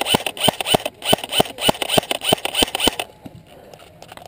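Airsoft rifle firing a rapid string of single shots, about four to five a second, stopping about three seconds in.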